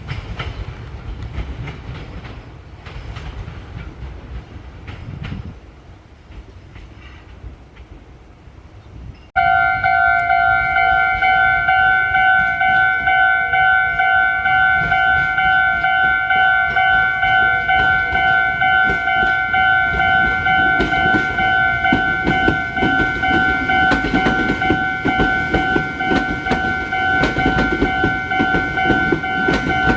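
A railway level-crossing warning alarm starts abruptly about nine seconds in and keeps ringing in a steady, piercing pair of tones. Under it a train's rumble fades out early on, and a train's rumble and rail clatter build again in the second half.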